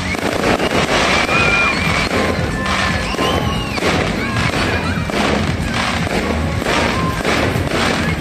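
Fireworks going off in quick succession, a sharp bang or crackle about every half second to second, with music playing underneath.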